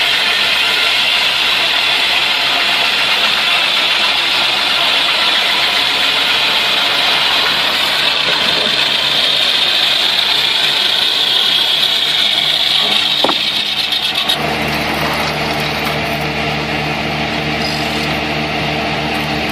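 Engine-driven sawmill cutting through a log, a loud high hiss over the running engine. About fourteen seconds in, the cut ends and the high hiss drops away, leaving the engine running with a steady hum.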